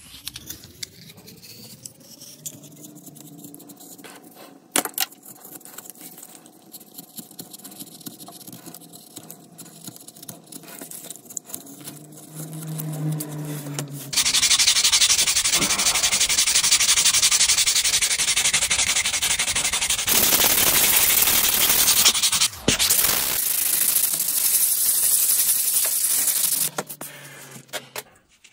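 Sanding: a loud, even rubbing noise in three long stretches with two short breaks, after a quieter stretch of faint handling sounds.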